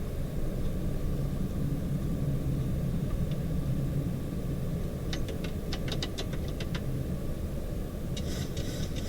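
Steady low rumble of a Boeing 737-800 cockpit while taxiing, its CFM56 engines at idle. About five seconds in comes a quick run of about ten sharp clicks, and near the end a short burst of hiss.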